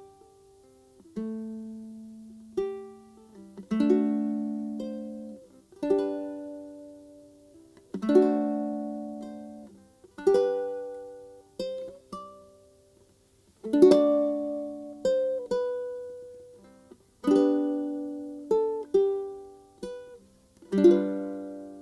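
Background music of gentle plucked-string chords, each struck sharply and left to fade, a new one every one to two seconds.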